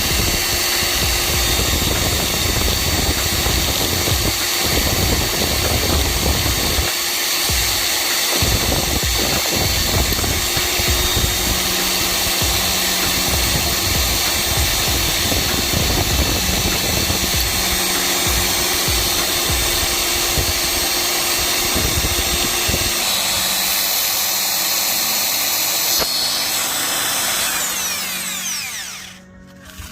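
Electric power tool running steadily, then spinning down and cutting out near the end.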